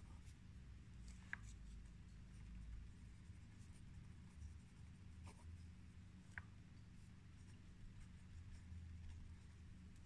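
Faint pen writing on paper: soft scratching strokes, with two sharper ticks about a second in and after six seconds, over a low steady hum.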